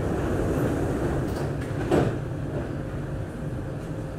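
MRT train's sliding doors closing and shutting with a thump about two seconds in, over the steady hum of the carriage.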